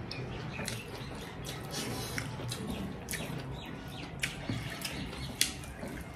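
Close-up eating sounds: wet chewing and lip smacks, with fingers squishing and mixing rice and curry on steel plates, heard as many short clicks. One sharper click comes a little past five seconds.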